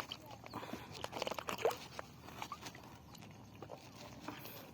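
Irregular crunching clicks and rustles of a freshly caught tilapia being handled while it flaps.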